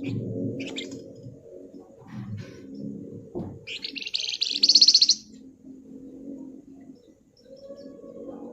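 Flamboyan (wergan Jawa) songbird calling: a few short high notes, then a rapid, dense, buzzing trill (the 'ngebren' rattle) about three and a half seconds in, lasting about a second and a half. The trill is the loudest part. A lower, steady pitched sound runs underneath.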